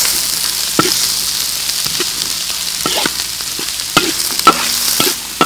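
Diced onion and green pepper sizzling in hot oil in a metal wok. A metal spatula stirs them, scraping and clinking against the wok with a sharp stroke every second or so, the loudest about four and a half seconds in.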